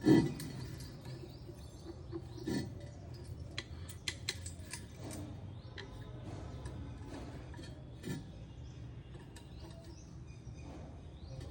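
Plumbing work: scattered clicks and taps of hand tools and fittings being handled, with louder knocks just after the start, about two and a half seconds in and about eight seconds in, over a steady low hum.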